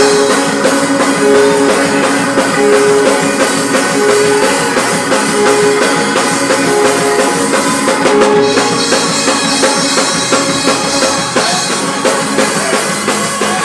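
Loud, up-tempo praise music from a church band, driven by a drum kit, with a short low note repeating about every second and a half.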